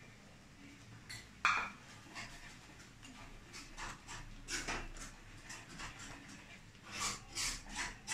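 Wooden spatula stirring and scraping thick masala paste around a steel pot, in short strokes about two a second in the second half. A single sharp clink of a spoon against the pot comes about a second and a half in.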